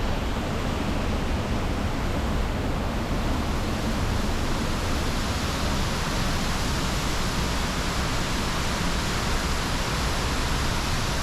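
Waterfall rushing, a steady, unbroken wash of falling water heard close enough to be in its spray.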